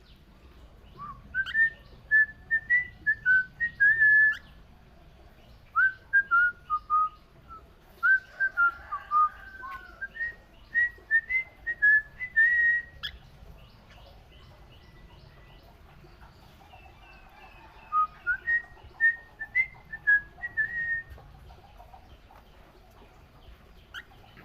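Cockatiel whistling a tune in three phrases of short, clear notes that step up and down in pitch, with pauses of a few seconds between the phrases.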